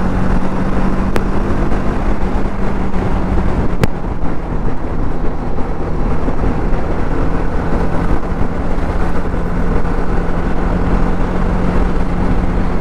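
TVS Apache RR310's single-cylinder engine running at a steady cruising speed, mixed with the rush of wind and road noise. Two brief ticks come about one and four seconds in.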